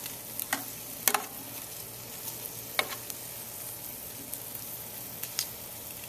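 Beef and vegetables sizzling in a hot pan just pulled from under a toaster oven's broiler, a steady hiss, with a few sharp clicks of metal tongs against the pan as the pieces are turned over.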